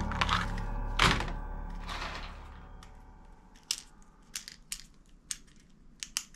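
Plastic toy guns knocking together as they are handled: a loud knock about a second in and another soon after, then a series of short sharp clicks. Background music fades out over the first few seconds.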